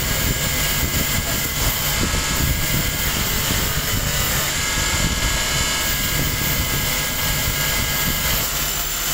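Steady din of metalworking machinery running in a spoon factory: a constant low rumble with a steady high whine over it.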